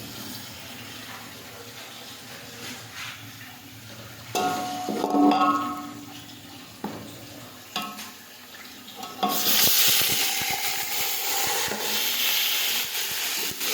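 Chicken pieces going into hot oil with browned onions and sizzling loudly from about nine seconds in, the start of frying the meat. Before that, a few clanks of pot and utensils.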